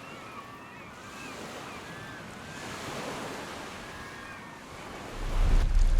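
Added outdoor ambience of waves and wind, with a deep low rumble that starts about five seconds in and grows louder.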